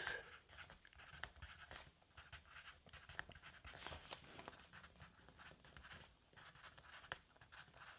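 Pen scratching on paper, faint and irregular: a visitor's entry being written into a logbook.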